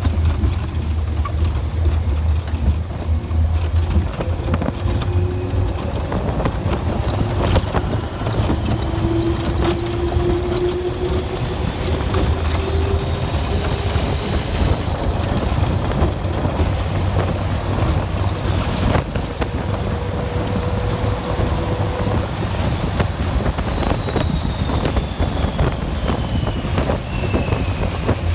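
Test Track ride vehicle running at speed on its outdoor track: a steady low rumble and rushing wind. Over it, a faint pitched tone slowly rises and then falls in pitch in the last few seconds.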